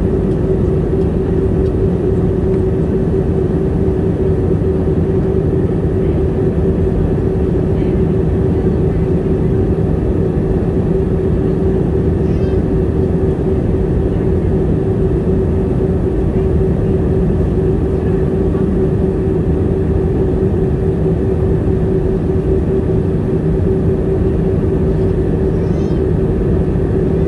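Passenger jet cabin in cruise: a steady low drone of engine and airflow noise with one steady hum tone standing out.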